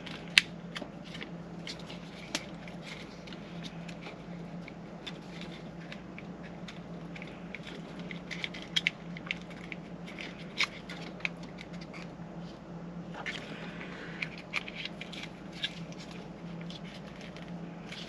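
Plastic wiring-harness connectors and loose cables being handled and pushed together behind a car stereo head unit: scattered small clicks and rustles, over a steady low hum.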